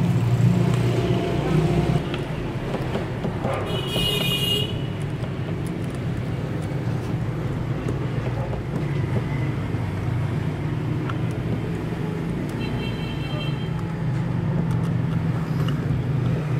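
Background road traffic: a steady low drone, with a short high toot about four seconds in and a fainter one around thirteen seconds.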